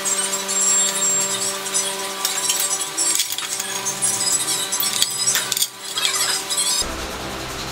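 Hand wrench working the rear axle nut of a Honda SH300 scooter: quick metallic clicks, clinks and scrapes of steel on steel over a steady hum. About seven seconds in, the clicking gives way to a steady low rumble.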